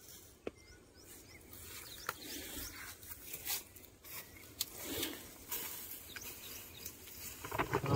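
Dry straw and fodder rustling and crunching under footsteps as someone walks over and searches the heap, in irregular scrapes with scattered sharp clicks.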